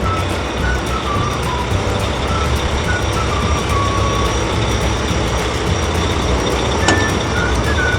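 A cartoon heavy truck engine running steadily with a low rumble, a faint tune over it and a sharp click about seven seconds in.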